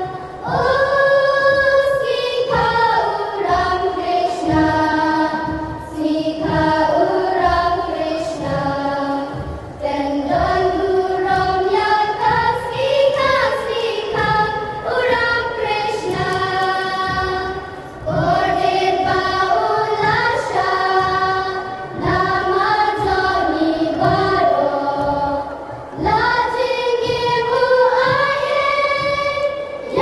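A chorus of children singing together in unison, in sung phrases of a few seconds each with short breaks between them.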